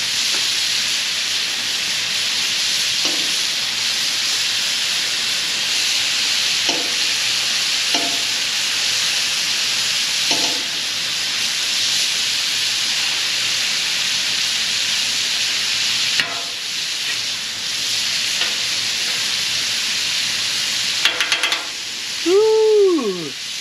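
Redfish fillets sizzling steadily in butter on a very hot griddle as they blacken. A brief, loud sliding tone rises and falls near the end.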